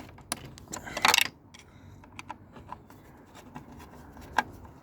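A screwdriver working at screws in a tower fan's plastic casing: scattered small clicks and ticks, with a louder scrape about a second in.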